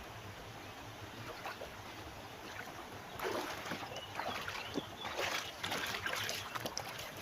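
River water flowing steadily, with irregular splashing and sloshing from about three seconds in that eases off near the end.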